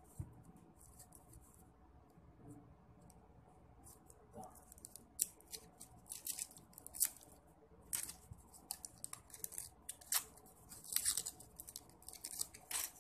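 Crinkly wrapper of an individually wrapped chocolate being picked at and unwrapped by hand: quiet at first, then irregular sharp crinkles and crackles of the wrapper from about four seconds in.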